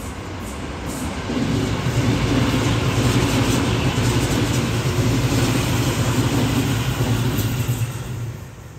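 Tobu 10000-series electric commuter train passing close by at speed: wheels rumbling on the rails under a steady low motor hum. It builds through the first second or so, holds loud, and fades away near the end as the last car goes by.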